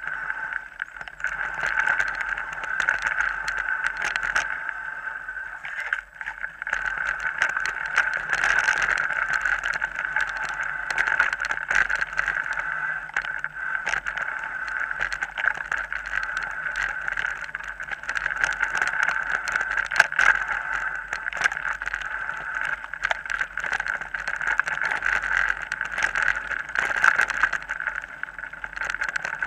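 Mountain bike rolling along a bumpy dirt trail, heard through a camera mounted on the bike or rider: a steady buzzing hum with frequent knocks and rattles as the bike goes over bumps.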